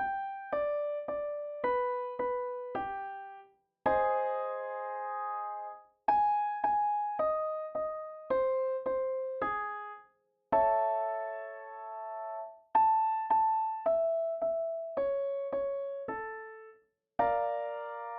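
Piano playing the accompaniment for a vocal warm-up: a quick descending run of about five notes ending in a held chord, three times, each run starting a half step higher than the last.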